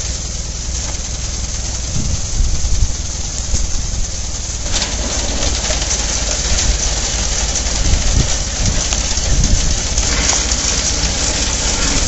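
Allis-Chalmers WD45 tractor engine running steadily as the tractor moves up on a bale, with the mounted roto bale loader working. From about five seconds in, a louder, hissing mechanical noise joins the engine.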